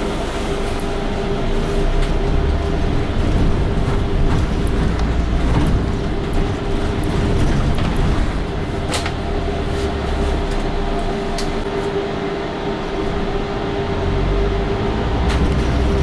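A London bus running along the road: steady engine and road rumble with a constant whine, the low rumble swelling and easing, and a few short rattles and clicks.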